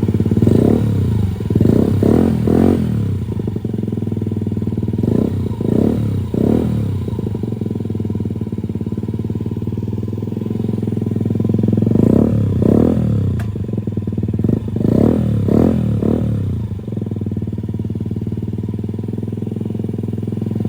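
Honda Ruckus 49 cc four-stroke single idling through a Beams R-Evo titanium exhaust with its silencer insert removed, blipped in quick revs in four bursts of two or three.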